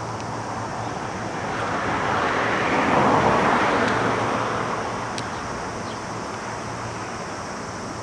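Outdoor traffic ambience: a vehicle passing by, swelling smoothly to its loudest about three seconds in and fading away, over a steady low hum.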